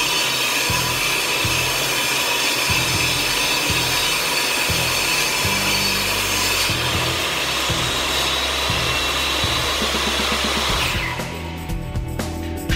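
Krisbow benchtop table saw running with its stock 40-tooth blade, ripping a wooden board with a steady whine. About eleven seconds in the motor is switched off and the blade spins down.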